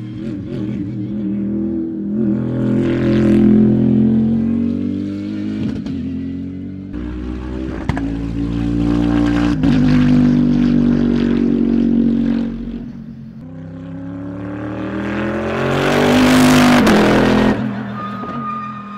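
Bentley Continental GT3 race car's twin-turbo V8 at racing speed on track. The engine note rises with the revs and breaks off at each upshift several times, and is loudest about three-quarters of the way through as the car passes close.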